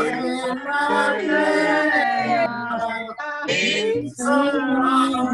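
Men and women singing a Hanukkah song together over a video call, several voices at once.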